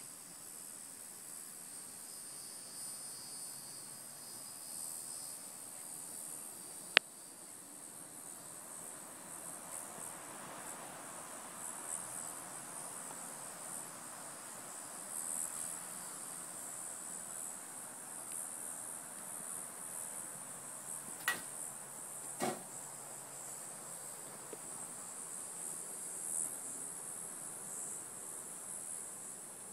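Steady high-pitched chorus of insects chirping, pulsing slightly, with a single sharp click about a quarter of the way in and two more clicks close together about three-quarters of the way through.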